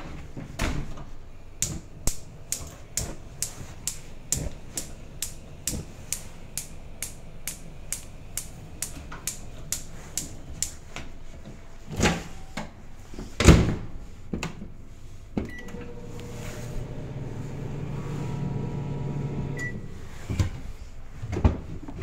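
Gas range spark igniter clicking steadily, about two to three clicks a second, for roughly ten seconds. Then two heavy thumps, a short beep, a steady electric hum from the over-the-range microwave running, and a second beep a few seconds later.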